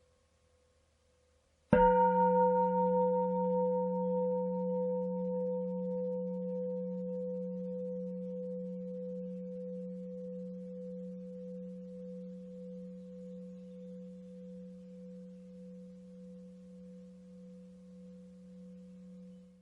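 A temple bell struck once about two seconds in. It rings with a low hum under clear higher tones and fades slowly with a steady waver in loudness until the ring is cut off near the end.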